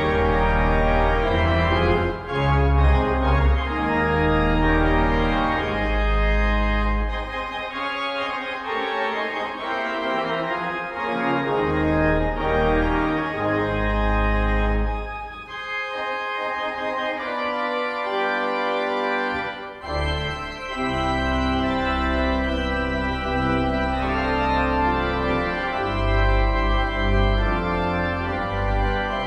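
Organ playing a slow piece of sustained chords that change every second or two, with deep bass notes that drop out for stretches.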